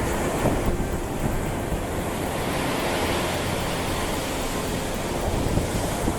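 Steady rushing noise of surf and wind, even throughout with no distinct impacts.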